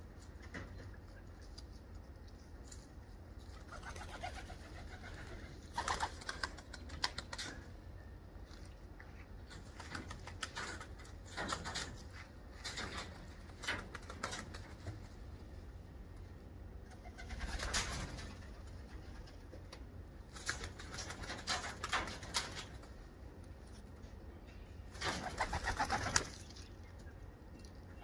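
Racing homing pigeons cooing, with short scratchy bursts every few seconds.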